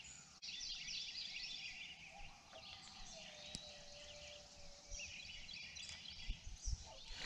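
Coyotes yipping and howling together in a faint chorus, with one longer, lower howl held through the middle.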